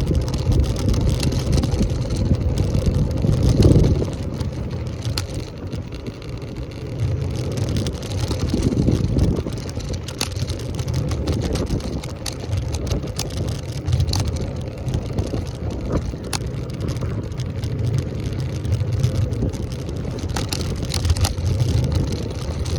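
Wind buffeting the microphone and road rumble from an electric scooter being ridden, rising and falling in gusts, with a few scattered clicks.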